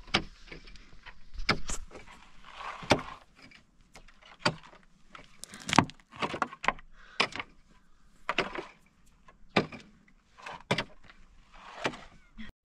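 A long-handled digging tool striking packed earth and stony soil over and over, about one blow a second, each thud followed by a short scrape of loosened dirt.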